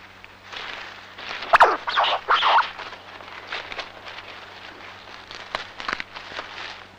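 Hazel leaves and twigs rustling and crackling in short irregular bursts as a red squirrel clambers through the bush, loudest a couple of seconds in, with a few sharp snaps; a low steady hum runs underneath.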